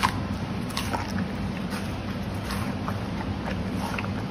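Giant panda chewing close up, with irregular crisp clicks and crunches, the sharpest right at the start and another just under a second in, over a steady low hum.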